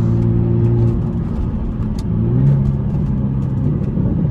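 BMW Z4 engine and exhaust running under way: a steady note that drops away about a second in, then picks up and rises in pitch about two seconds in.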